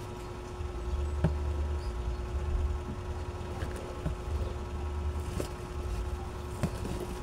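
A few light plastic clicks and knocks as a folding desk fan is handled and pulled up from its storage base, over a steady low hum and an uneven low rumble that comes and goes.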